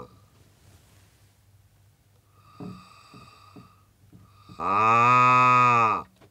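A mechanical vocal-tract model sounds a synthetic vowel 'ah', a low, steady buzz lasting about a second and a half that starts a little past the middle. It is voiced by an artificial larynx driven by air from a lung model. Before it come a few faint clicks from the model's velum slider being moved by hand.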